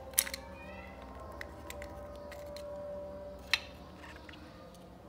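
Sharp plastic clicks and small ticks from the orange plastic housing of a soldering gun being handled and opened by hand. The loudest click comes just after the start and another about three and a half seconds in.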